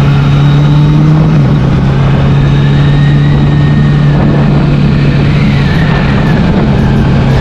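Kawasaki Z900's inline-four engine cruising at steady revs, heard from the rider's seat, its low running note holding one pitch under a constant rush of wind noise.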